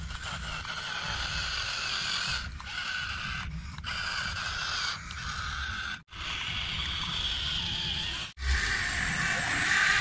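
Small electric motors and plastic gearboxes of toy RC construction vehicles whirring, with sand crunching under them. The sound cuts out sharply twice, about six seconds in and past eight seconds, and is louder after the second cut.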